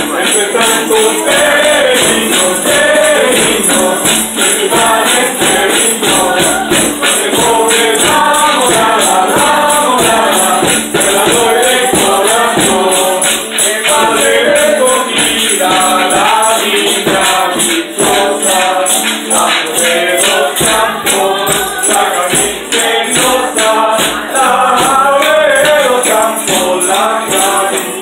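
A group of people singing a posada song together, with tambourines and maracas shaken in a steady rhythm.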